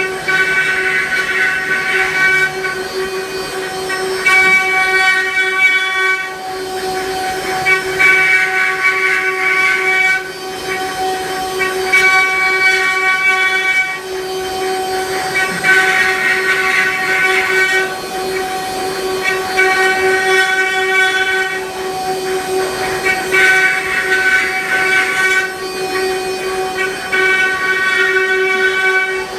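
Spindles of an eight-head, four-axis CNC router running with a steady high whine while carving wood, with higher cutting tones that come and go every couple of seconds as the bits work into the wooden blanks.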